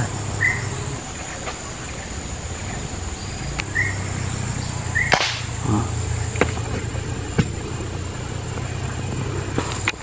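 A single sharp shot from a PCP air rifle about five seconds in, fired at a pigeon in the treetop. Under it run a steady high insect drone and a few short chirps.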